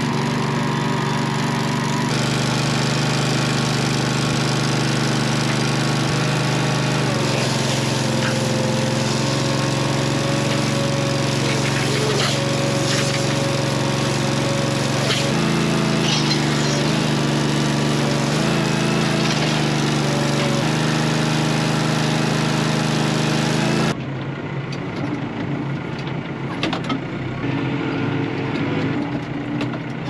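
Honda GX690 V-twin petrol engine on a bale wrapper running steadily, its pitch shifting slightly a few times. About 24 seconds in, the sound cuts to a quieter tractor engine running.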